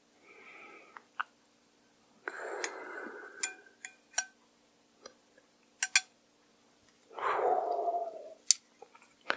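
Somen noodles slid from a glass dish into a large glass bowl of cold mulhoe broth and stirred in with chopsticks: soft wet swishing in a few stretches, the longest about seven seconds in, with sharp clicks of the chopsticks against the glass.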